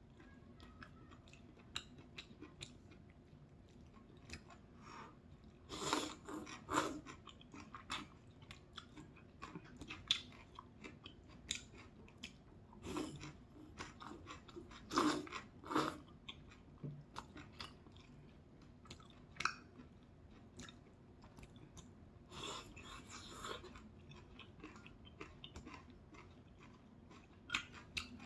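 A person slurping kimchi udon noodles and chewing them, with several loud slurps spread through and quieter wet chewing between.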